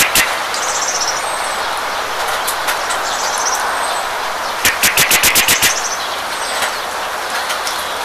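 Steady hiss of falling rain with birds: a short high falling whistle three times, and about halfway a rattling burst of about ten rapid sharp clicks lasting about a second, the loudest sound.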